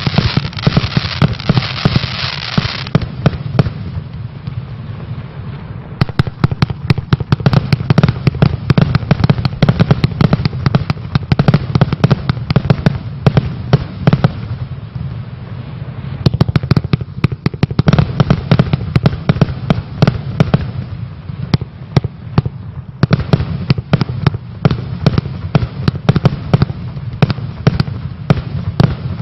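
Vuurwerktotaal 'Heisenberg' 236-shot fireworks compound cake firing a rapid, continuous barrage of shots and star bursts. A dense crackling hiss fills the first few seconds, and the barrage thins briefly twice before picking up again.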